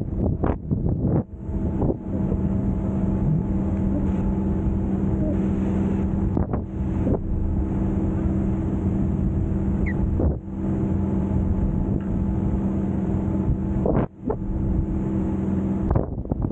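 Wind buffeting the camera's microphone while parasailing at speed, with a steady low hum underneath and a few brief drops where the gusts let up.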